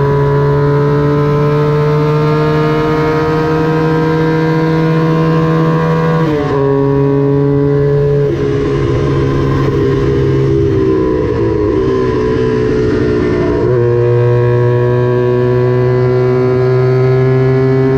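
Small vintage Honda twin-cylinder racing motorcycle engine held at high revs, its pitch climbing slowly. The revs dip about six seconds in, drop and waver for several seconds as the throttle is eased, then pull back up and climb steadily again.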